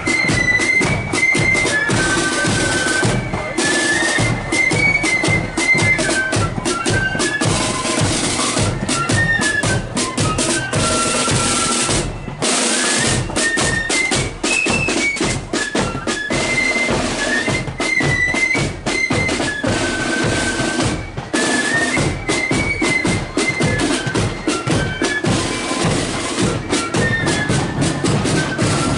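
Marching flute band playing a tune on transverse flutes over rapid side-drum rolls and bass drum beats.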